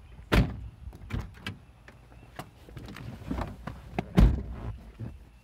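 A series of knocks and thumps from handling inside a car's cabin, the loudest about half a second in and just after four seconds in.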